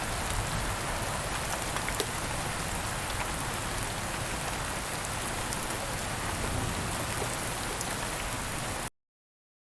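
Steady rain, an even hiss with many small drop ticks, cutting off abruptly near the end.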